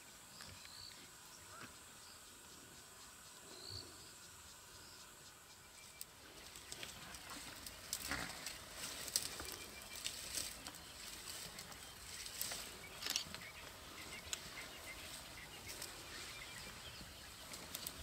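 First, a steady high insect trill with a few short chirps from night bush. After an abrupt change about six seconds in, an African elephant herd moves through scrub: rustling and snapping vegetation with scattered sharp cracks and heavy footfalls, loudest in the middle stretch.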